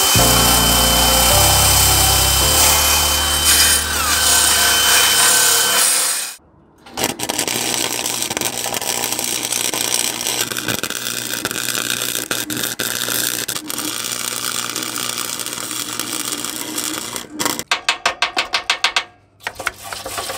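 Cordless drill spinning a wire wheel brush against the steel of the frame tube, cleaning it for welding, its whine dropping in pitch near the end of the run. After a brief pause, an electric welding arc crackles steadily for about ten seconds, then stutters in short bursts near the end.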